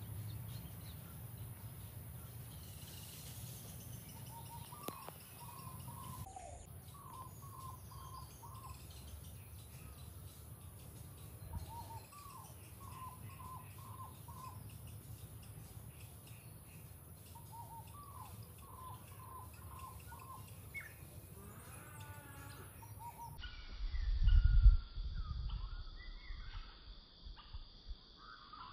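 A bird calling in short runs of four or five quick notes, repeated every few seconds, over a steady high-pitched hiss. A brief low rumble near the end is the loudest sound.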